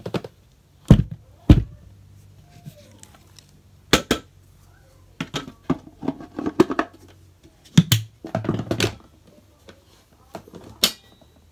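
Several dull thuds and bouts of rustling as clumps of shredded yarn, rope and feather debris are dropped and piled onto carpet, over a faint steady low hum.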